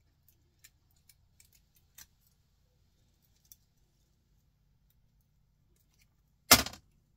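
Small hand cutters snipping and picking at a piece of electronic scrap to strip the copper off it: a scatter of light clicks in the first few seconds. About six and a half seconds in there is one sudden, loud, short noise.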